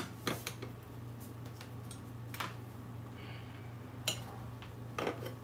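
A few light, scattered clicks and clinks of metal tongs against the waffle iron's plates as croissants are lifted out, over a steady low hum.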